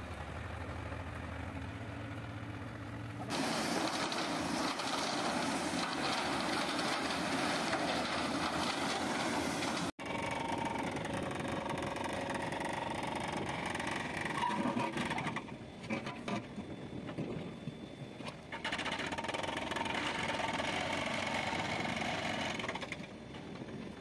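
Backhoe loader diesel engines running while the machines dig and load. The sound cuts abruptly a few times.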